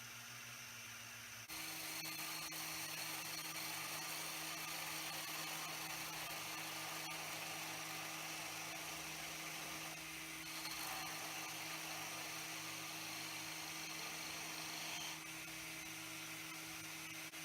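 Wood lathe running with a steady low motor hum as a hemlock hub blank is turned, its ends being squared up; the sound shifts slightly for a few seconds about ten seconds in.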